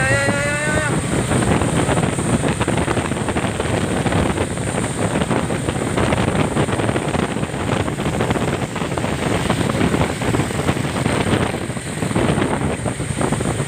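A moving road vehicle with strong wind buffeting the microphone, a steady rushing noise. A brief, slightly rising tone sounds in the first second.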